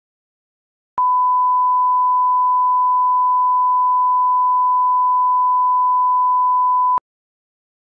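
Steady 1 kHz line-up reference tone, the test tone that goes with colour bars, a single unwavering pitch. It starts about a second in and cuts off abruptly about six seconds later.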